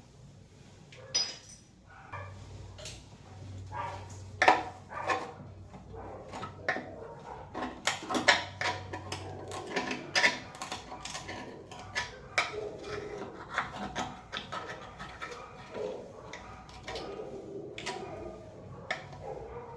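Irregular clinks, taps and knocks of hand tools and small metal and plastic parts being handled while working on a shower valve, with a faint low hum in the first half.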